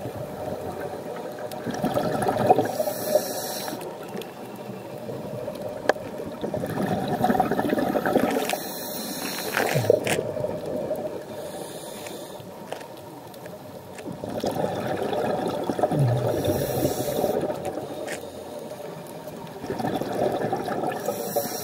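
Underwater breathing sounds of a diver: regular swells of bubbling and rushing noise about every six seconds, each lasting a few seconds, over a steady watery hiss.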